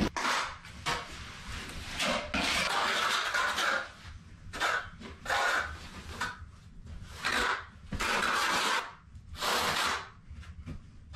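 Steel notched trowel scraping and combing thin-set mortar across the floor, in a series of rough scraping strokes of half a second to a second and a half each.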